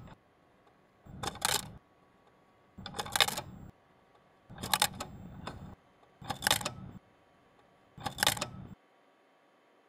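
Camera-shutter click sound effect, five times at an even pace about every 1.7 s, each a short cluster of sharp mechanical clicks.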